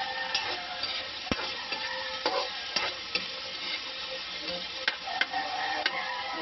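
Diced onion and bell peppers sizzling in hot oil in a wok as they are stir-fried, with a metal spoon clinking and scraping against the pan several times.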